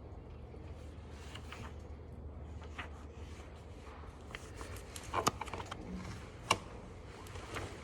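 Library room ambience: a steady low hum of building ventilation with scattered small clicks and taps of people handling things, two sharper clicks about five and six and a half seconds in.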